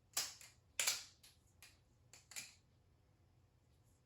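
Balisong (butterfly knife) handles and blade clacking as the knife is flipped open and closed by hand: a quick run of sharp clicks, several in close pairs, over the first two and a half seconds.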